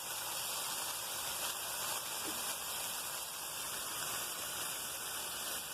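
Chicken, carrots, celery and onion sizzling steadily in a pan as they sauté, an even hiss.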